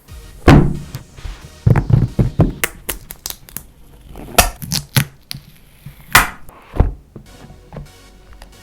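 A smartphone's retail box and packaging being handled and opened by hand: a string of sharp knocks, taps and rustles, the loudest about half a second in, with quieter scrapes between them.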